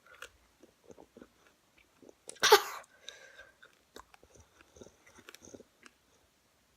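Chewing and wet mouth clicks of someone eating sour candy, with one short, loud burst of breath about two and a half seconds in as the sourness hits.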